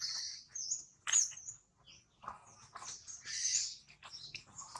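A series of short, high-pitched animal chirps and squeaks, some rising and then falling in pitch, with short gaps between them.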